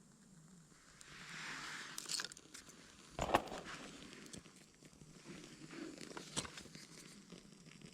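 Rustling, then a few sharp crunches and knocks, the loudest with a dull thump about three seconds in and another near six seconds, as of someone moving about and handling things.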